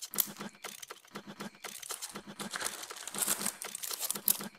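Thin clear plastic zip-lock bag crinkling and crackling as it is handled, with a dense run of short irregular crackles, heaviest in the second half.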